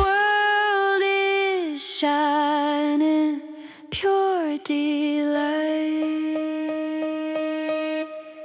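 Background music: a female voice singing long held notes without words, with a slight waver, sliding down between them over a soft backing. It fades out near the end.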